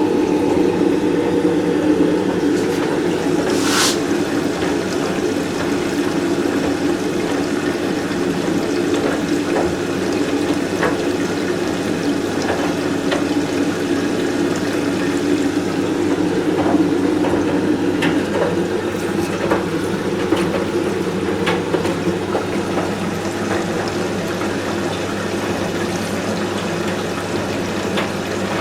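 Candy Smart Inverter CSS4 37TWMB front-loading washing machine running, with water rushing steadily through it and a low steady hum, plus a few faint clicks.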